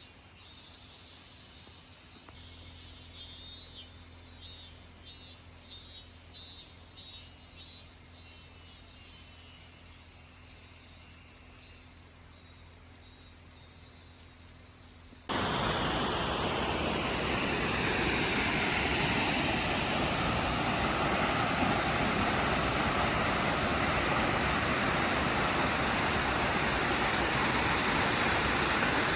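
Waterfall rushing: a loud, steady noise of falling water that cuts in suddenly about halfway through. Before it there is quiet outdoor ambience with a few faint high chirps.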